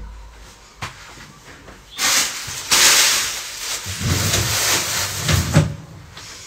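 Kitchen tap running: a steady rush of water starts about two seconds in, deepens as it fills a pot or vessel, and stops after about three and a half seconds. A few faint knocks come before it.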